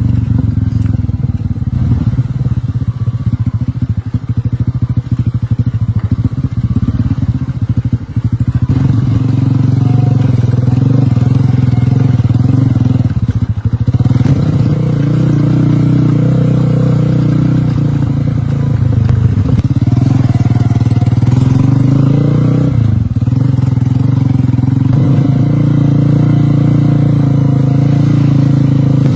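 Motorcycle engine running steadily, its pitch dropping and picking up again a few times.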